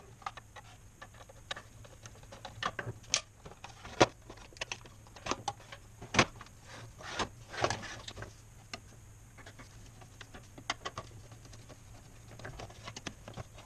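Irregular clicks, taps and knocks of the plastic end covers of a Chamberlain LiftMaster garage door opener being unscrewed with a screwdriver, lifted off and set down on a wooden workbench, the loudest knocks about four and six seconds in.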